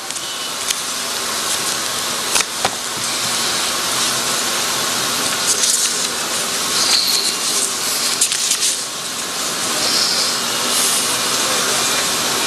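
Steady hiss of background noise, nearly as loud as the speech around it, with a few sharp clicks in the first three seconds.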